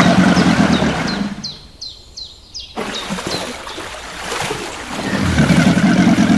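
A small bird chirping repeatedly in short, falling notes, about three a second, over a low rumbling noise that swells at the start and again near the end.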